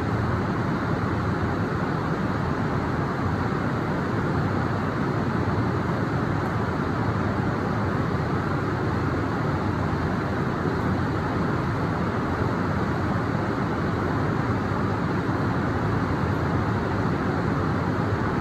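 Heavy rain falling, a steady even rush of noise with no thunderclaps or other sudden sounds.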